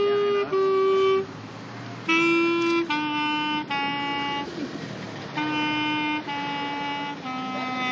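Clarinet played solo: slow held notes in three short phrases separated by brief pauses. Each phrase steps downward in pitch, and the last note is held long.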